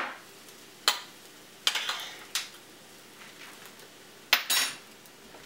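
A handful of separate sharp clicks and clinks of kitchen utensils and cookware being handled, about a second apart, with a quick double knock about four seconds in.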